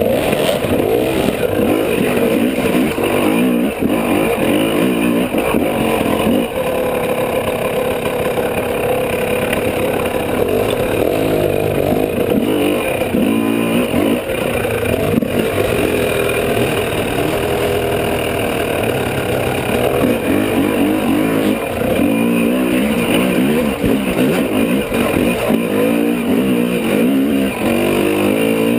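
Dirt bike engine heard close up from the bike itself, revving up and down with the throttle as it is ridden over rough trail.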